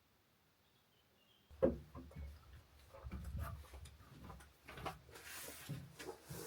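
Near silence, then from about a second and a half in, a sharp knock followed by a run of smaller knocks, clicks and short rustling noises, like objects being handled.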